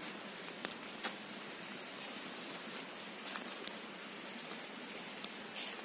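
Small wood fire crackling, a few sharp isolated pops over a steady hiss, with a brief rustle near the end.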